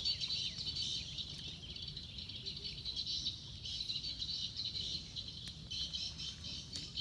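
A chorus of small birds chirping continuously in high, rapid notes, with a low steady rumble underneath.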